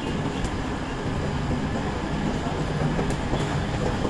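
Steady low rumble of a diesel CrossCountry train standing at the platform with its engines running, heard across the station platform, with a couple of faint ticks.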